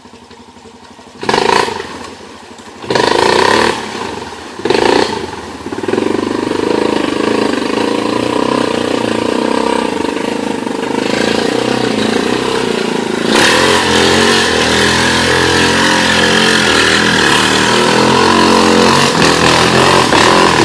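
Honda Foreman 450 ATV engine: a few short loud bursts, then running steadily from about six seconds in. It gets louder about halfway through, with a rushing hiss on top.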